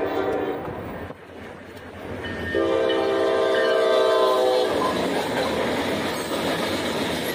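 Diesel freight locomotive horn sounding a short blast, then a long blast of about two seconds, the end of its grade-crossing signal. The horn then gives way to the steady rolling noise of the freight cars passing.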